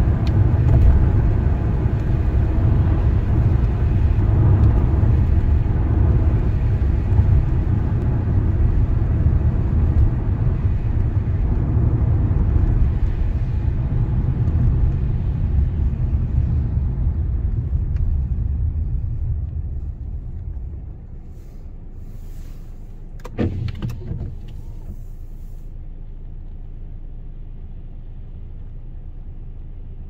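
Car road noise heard from inside the cabin: a steady low rumble of engine and tyres on a wet road that fades about two-thirds of the way through as the car slows to a stop, leaving a quieter steady hum. A short sharp sound comes a few seconds after it quiets.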